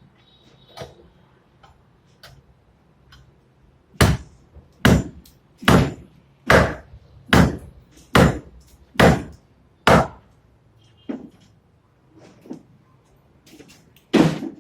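Hammer blows on wood: eight loud, evenly spaced strikes a little under a second apart, then a few lighter taps and one more hard strike near the end.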